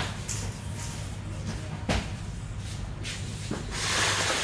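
Sharp clicks from handling the LED strobe's wiring as the bare wire ends are touched to the power source, one at the start and one about two seconds in, with fainter ticks between. A steady low hum runs underneath, and a rush of noise swells near the end.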